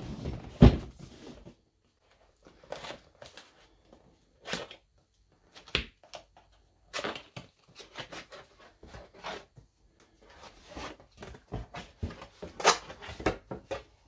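Cardboard packaging being handled: boxes scraping and knocking, the lid of the box lifted off and its cardboard flaps folded open, in an irregular run of scrapes, rustles and knocks. The loudest is a sharp knock under a second in.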